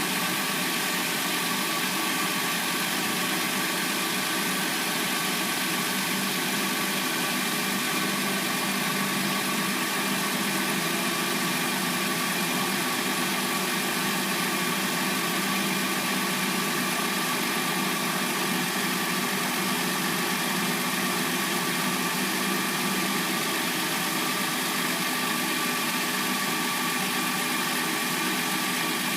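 Hyundai Sonata engine idling steadily, an even hum with no change in speed.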